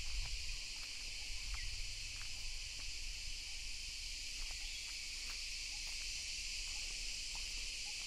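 Steady, high-pitched drone of an insect chorus, with a few faint ticks over it.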